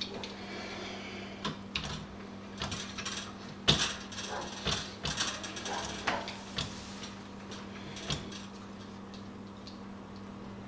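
Irregular metallic clicks and knocks of a Schlage deadbolt being pressed into place and worked, its mechanism clicking through its detents. The sharpest click comes a little under four seconds in, over a faint steady hum.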